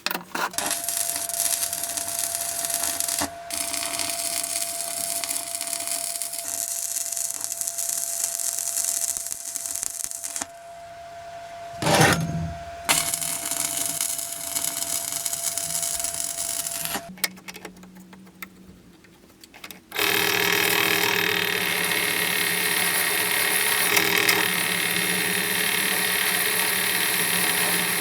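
A power tool running in several long stretches, starting and stopping, with a sharp knock about twelve seconds in; a louder, different-toned run begins about twenty seconds in.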